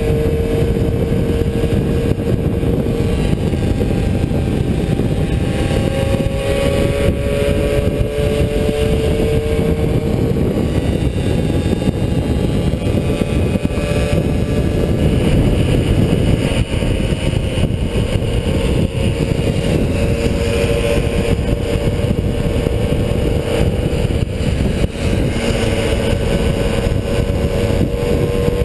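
Small 50 cc two-stroke moped engine running steadily at cruising speed, its pitch drifting a little up and down, under heavy wind rumble on the microphone.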